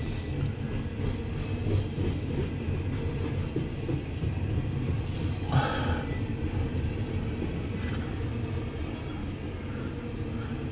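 Loaded coal train rolling past with a steady low rumble of wheels on rail, and one short sharper clank or squeal about five and a half seconds in.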